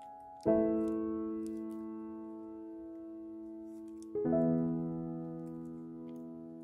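Background piano music: a sustained chord struck about half a second in and another about four seconds in, each ringing on and slowly fading, with faint soft clicks of paper being folded underneath.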